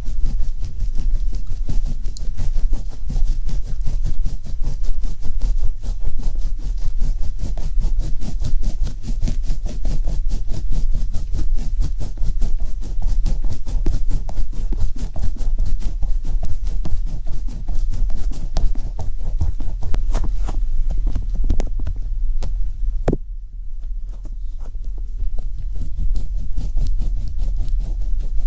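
Close-microphone ASMR trigger sounds: fast, continuous scratchy handling noise over a steady low rumble. A sharp click comes about 23 seconds in, followed by a few quieter seconds before the noise resumes.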